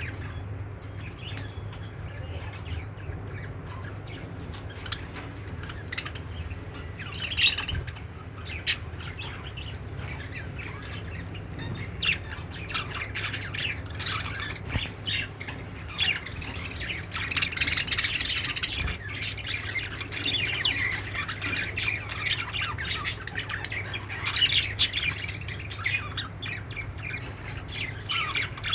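Pet budgerigars chattering and warbling with quick chirps and sharp squawks. There are louder spells of calling about 7, 18 and 25 seconds in.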